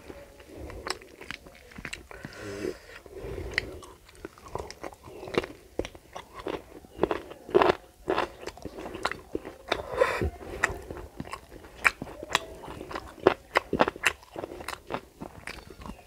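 Close-miked eating sounds: chewing and mouth smacks with many sharp, irregular wet clicks, along with fingers mixing rice and curry on a plate.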